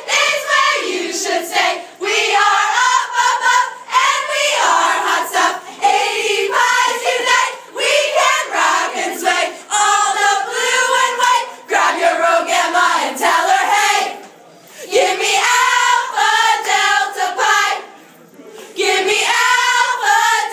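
Group of young women singing a sorority song loudly together, unaccompanied, with two short breaks between phrases in the second half.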